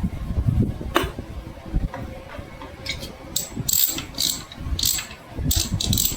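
Metal parts of a Royal Enfield Bullet gearbox being handled and turned during assembly. There is a sharp knock about a second in, then a series of short ratchety rasps in the second half.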